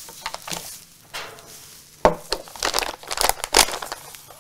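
Plastic crinkling and rustling as items are handled, in irregular crackly bursts that are loudest in the second half.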